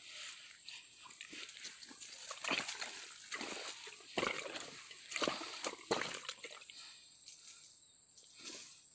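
Splashing and rustling in a shallow, grassy ditch of water, with a handful of sharp, sudden bursts between about two and six seconds in.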